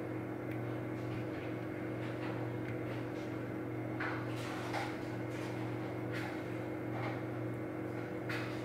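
Faint, irregular metallic clicks and light scrapes of a dimple pick working the pin stacks of a Goal V18 high-security dimple cylinder under a tension wrench, several of them in the second half, over a steady low hum.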